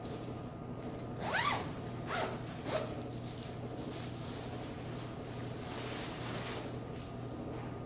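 Featherdown down sleeping bag's side zipper pulled along in three quick strokes, the first the loudest, followed by the soft rustle of the bag's thin Pertex Quantum Pro nylon shell being smoothed and folded by hand.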